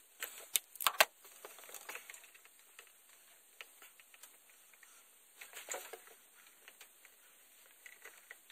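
A socket and extension being worked off a freshly tightened oil pressure sensor deep behind the engine: a few sharp knocks about a second in, then scattered faint clicks and rustling of hands among engine parts. The socket is hard to get off.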